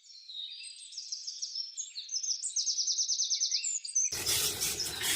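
Birds singing: quick chirps and a rapid trill of about ten notes a second, fading in at the start. About four seconds in, a loud harsh noise cuts in abruptly and drowns the birdsong.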